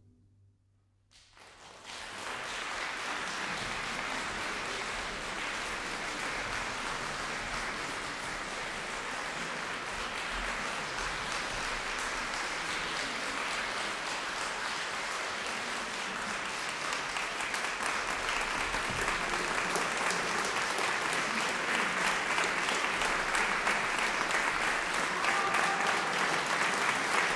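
Audience and choir applauding after a piece for choir and guitar. The last chord dies away at the start, and after about a second of quiet the clapping breaks out and runs on, growing somewhat louder toward the end.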